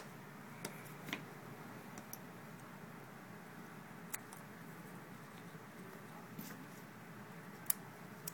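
Faint, scattered clicks and ticks of small tools and parts being handled inside an opened iPhone 4, over a steady low hiss. The sharpest click comes near the end.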